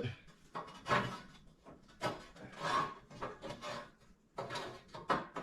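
Several short scrapes and knocks of objects being handled and set in place.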